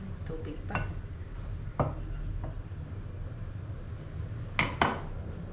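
A few light clinks and knocks of kitchenware, ending in two sharp ones close together near the end, over a steady low hum from a lit gas burner.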